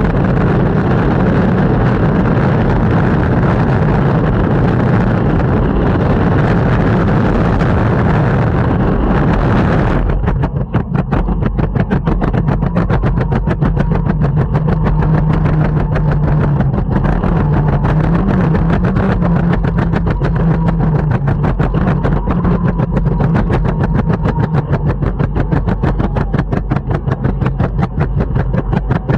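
Longboard wheels rolling over the street: a steady rough rumble that changes sharply about ten seconds in to a rapid, even ticking over a low hum.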